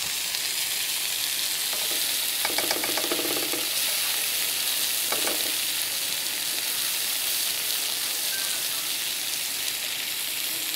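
Paprika-marinated chicken breast frying in butter in a frying pan, with a steady sizzle.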